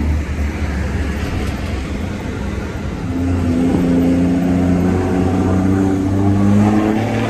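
Truck diesel engine running under way, heard from inside the cab. The note swells about three seconds in as the engine pulls harder, then holds steady.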